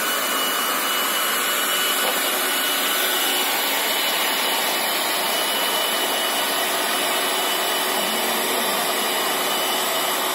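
Leister Twinny T hot-air wedge welder running as it travels along a pond-liner seam: its hot-air blower gives a steady hiss, with a thin, steady high whine over it.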